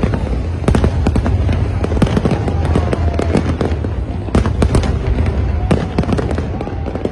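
Fireworks display: many aerial shells bursting in quick succession, a dense run of bangs and crackles over a steady low rumble.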